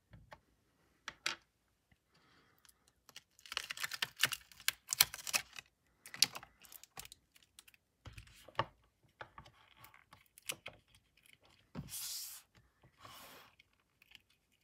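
Irregular plastic clicks, taps and rustling from hands working on a 15-inch Retina MacBook Pro: a plastic spudger prying the battery connector off the logic board, then the replacement battery pack with its rigid plastic shield being lifted out of the case and set down. The clatter is densest around four to five seconds in, with a short rustle near the end.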